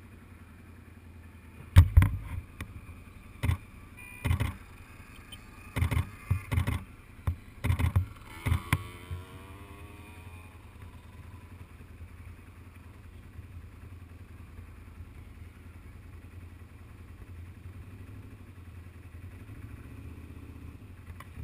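Quad bike engine running with a steady low hum. A cluster of about a dozen loud, sharp knocks and thumps comes between about two and nine seconds in.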